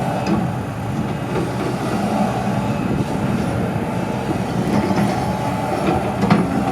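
Excavator running steadily while it breaks up and removes concrete sidewalk, with a light knock about a third of a second in and a sharper one near the end.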